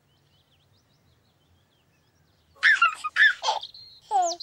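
Near silence for about two and a half seconds. Then a baby giggles in a few short bursts. A brief high steady tone and a whistle sliding steeply down in pitch follow near the end.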